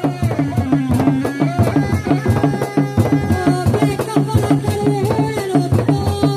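Seni reak music played live: fast, steady beating of dogdog drums under a wavering, reedy tarompet melody of long held notes.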